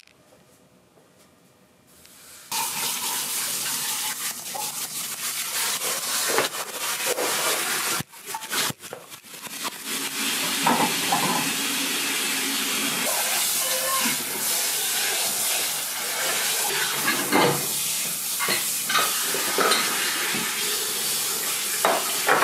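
Water running steadily from a tap. It starts about two and a half seconds in, breaks off briefly around eight seconds, and is joined by a few clinks of dishes near the end.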